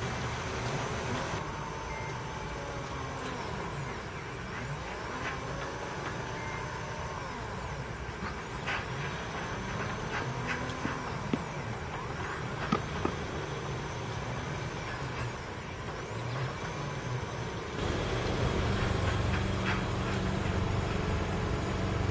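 Concrete 3D printer running, its gantry motors whining in pitches that rise and fall as the extruder nozzle moves along the curved wall, with a few sharp clicks. A louder low rumble comes in near the end.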